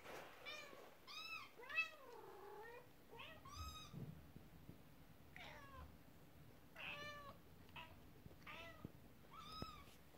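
Kittens mewing: about ten short, high-pitched mews, faint and spaced irregularly.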